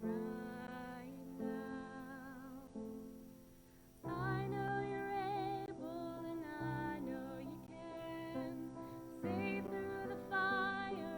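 A woman singing a slow song with vibrato over soft accompaniment; the music grows fuller about four seconds in.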